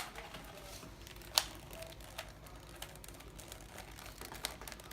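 3x3 Rubik's Cube being scrambled by hand: irregular small plastic clicks as its layers are twisted, one louder click about a second and a half in.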